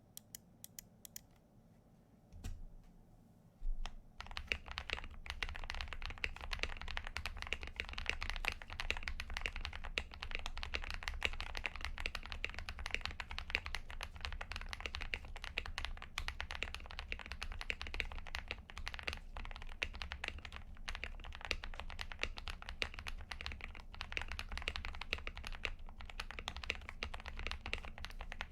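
Fast, continuous typing on a KBD67 Lite R2 custom mechanical keyboard with lubed Holy Panda tactile switches, PBT keycaps and foam-dampened case, starting about four seconds in. Before it come a few faint clicks and a dull thump.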